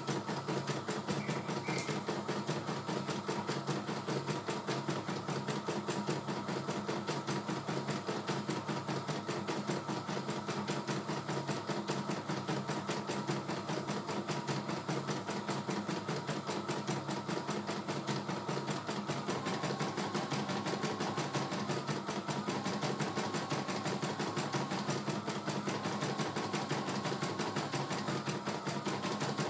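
CNY E900 computerized embroidery machine stitching a design, a steady, rapid run of needle strokes as the embroidery unit moves the hoop. A thin tone comes and goes in the second half.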